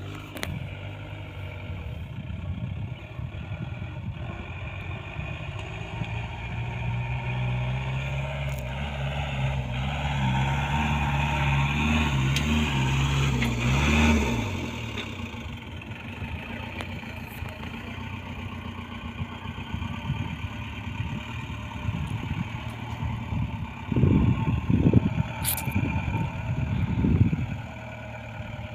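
Mahindra Bolero pickup's diesel engine working hard under load on a sand-dune climb, its drone growing louder for several seconds, then dropping away suddenly about halfway through. Louder low rumbling comes in near the end.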